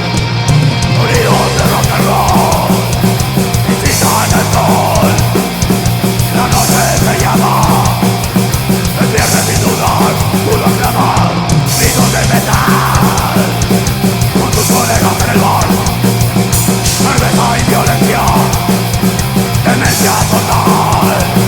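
Loud heavy rock music played by a full band, steady throughout.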